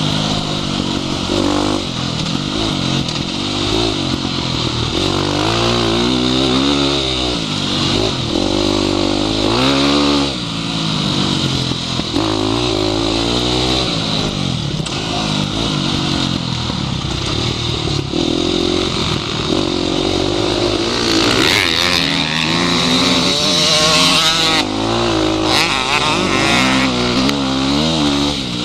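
Dirt bike engine heard from the rider's helmet, revving up and easing off again and again through gear changes while riding a motocross track.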